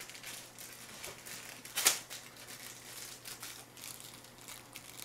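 Crinkling and rustling of plastic instant-noodle packaging being handled, with one sharper crackle about two seconds in.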